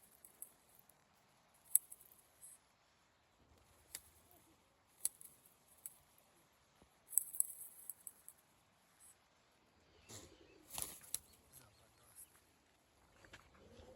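Roller pigeons' wings flapping in short, scattered bursts, with a busier cluster of flaps about ten seconds in.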